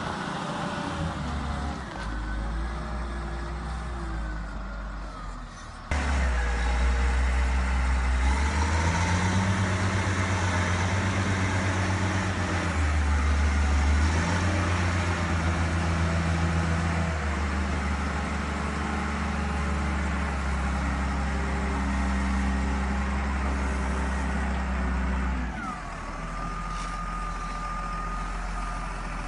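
Diesel engine of a 1994 Cat 950F Series II wheel loader running under load as the machine drives and works its bucket, its speed stepping up and down. It gets suddenly louder about six seconds in and drops back near the end, when a steady high whine comes in.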